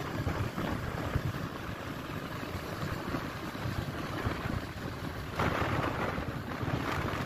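Wind buffeting a phone microphone in a moving car on a highway, a steady rushing noise over a gusty low rumble of the car and road. The rush grows louder about five and a half seconds in.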